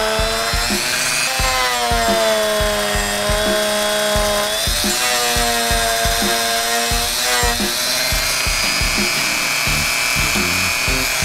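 A Dremel rotary tool with a sanding drum grinding the side tabs off a Toyota 3SGTE fuel injector held in a vise, its motor whine wavering in pitch as it bears on the part. Music with a steady beat plays underneath.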